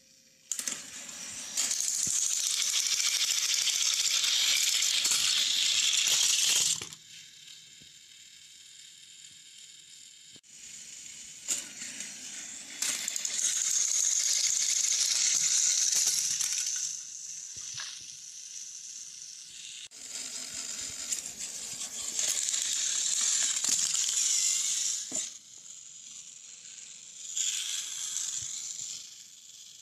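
Battery-powered toy trains running on plastic track, their motors and wheels making a rattling whir. The sound comes in four stretches of about two to six seconds each, with quieter gaps between them.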